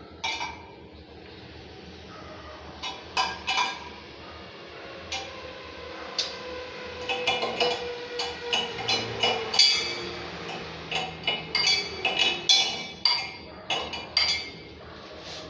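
Light clinks and knocks of hard parts against a ceramic wall-hung lavatory basin as it is being fitted. A few come at first, then a quick, irregular run of them in the second half.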